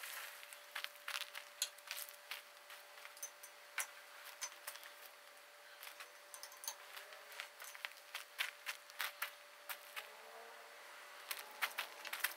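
Scattered light clicks and crunches of someone moving on gravel and handling the metal car frame, growing busier near the end, over a faint steady hum.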